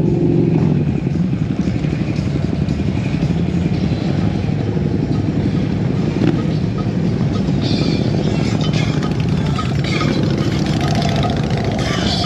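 Motorcycle engines running in the street, a steady low engine sound.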